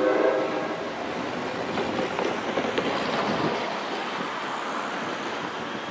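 An NJ Transit train's horn cuts off within the first second, leaving the rumble of the passing train's cars rolling on the rails, slowly fading.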